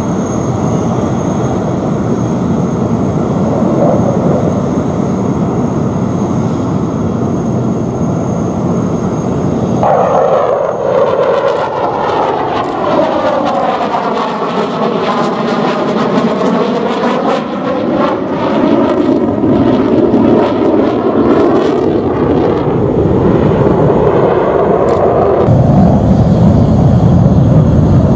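Dassault Mirage 2000's single SNECMA M53 turbofan jet engine heard in flight. About ten seconds in, the sound changes into a sweeping, phasing whoosh that falls and then rises in pitch as the jet passes. Near the end the jet noise becomes deeper and louder.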